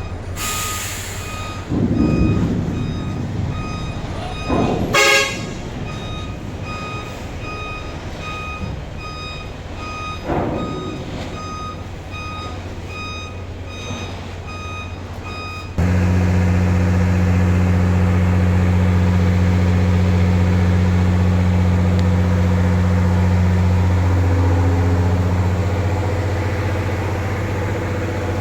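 A vehicle's reversing alarm beeps at a steady, even pace over a running engine, with a few louder swells of vehicle noise. About halfway through, the sound changes abruptly to a steady low engine drone.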